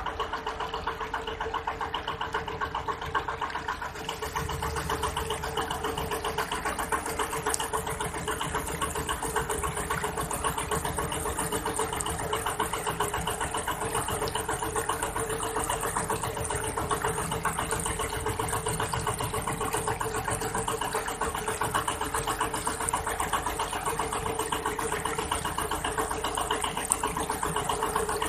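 A boat's engine running steadily under way, a little louder from about four seconds in, with water washing along the hull.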